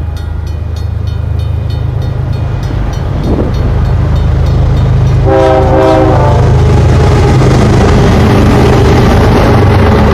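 Freight train diesel locomotive approaching and passing, its engine drone growing louder over the first few seconds. A short blast of its multi-chime air horn sounds about five seconds in, followed by the steady rush of the train going by.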